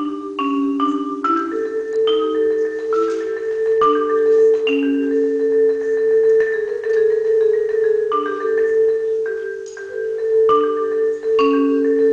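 Yamaha concert marimba played solo with mallets: long held notes in the lower-middle range, sustained as rolls, under shorter struck notes higher up.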